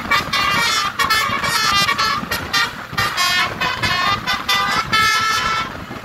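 A tour bus's Basuri telolet horn, a set of air trumpets playing a quick melody of short, changing notes over the vehicle's running noise. It trails off just before the end.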